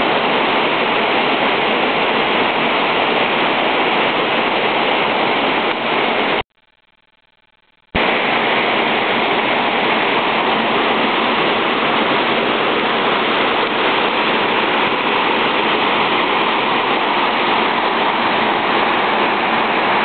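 Steady rushing of a river waterfall and its whitewater pouring over boulders. The sound cuts out abruptly for about a second and a half around six seconds in, then resumes just as loud.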